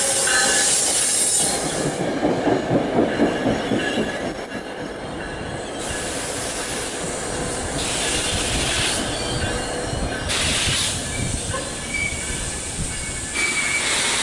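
A train's cars rolling past with thin, high wheel squeal and a quick run of clacks over the rail joints a few seconds in. The sound then thins to a steady rush with short bursts of hiss.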